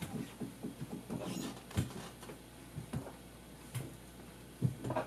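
Scattered soft knocks, clicks and rustling of people moving about in a room, with a louder thump a little under two seconds in and another near the end.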